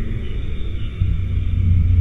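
Low, steady rumbling noise that swells from about a second in.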